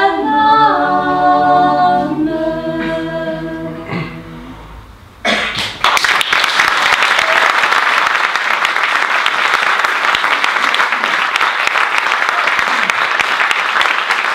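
Small a cappella vocal ensemble of women and men singing the last chords of a song, which fade away over the first few seconds. About five seconds in the audience breaks into steady applause.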